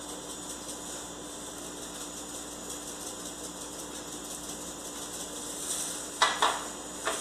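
Steady low room hum, then a few sharp clicks about six and seven seconds in as a glass spice jar is picked up from the table.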